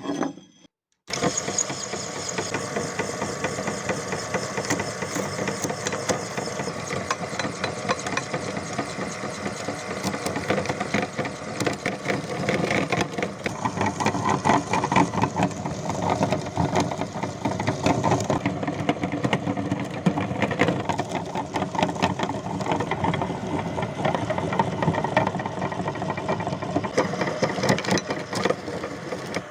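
Electric meat grinder starting about a second in and running steadily as it grinds Twix bars: a motor hum with constant crackling and clicking from the auger crushing the candy.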